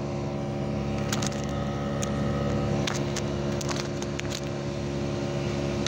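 Outdoor unit of a Panasonic 1.5-ton inverter split air conditioner running with a steady hum, with a few sharp clicks. The unit's abnormal noise is put down by the technician to loose outer casing screws and a clogged, dirty condenser.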